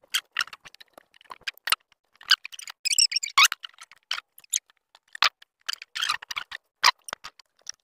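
Irregular metal clicks, clinks and knocks, with a short scrape about three seconds in, as the clamps of an Alaskan chainsaw mill are loosened by hand and the chainsaw is worked free of the mill for a bar change.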